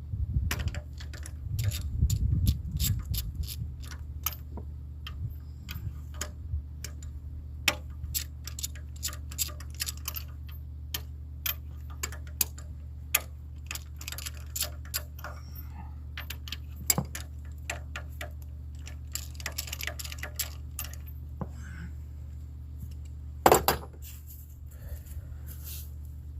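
Hand tools clicking and clinking on metal in an engine bay, irregular light taps with one sharper knock near the end, over a steady low hum.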